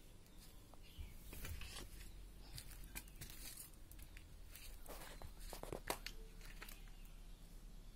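Faint, irregular crunching and scuffing of footsteps on a dirt floor strewn with dry leaves and debris, with a sharper click about six seconds in.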